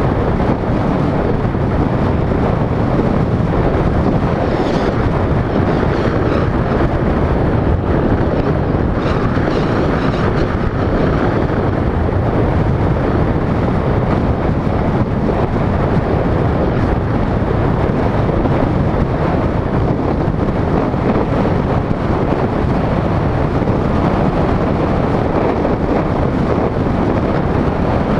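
Steady wind buffeting the microphone of a GoPro mounted on the outside of a moving vehicle, over the vehicle's road noise.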